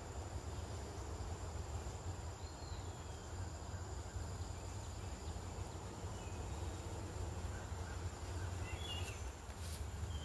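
Honey bees buzzing at a hive entrance, a little agitated by oxalic acid vapour from a mite treatment, over a steady high-pitched insect trill and a low steady rumble.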